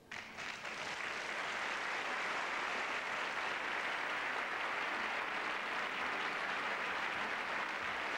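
A theatre audience applauding: a full, even round of clapping that builds up over the first second and then holds steady.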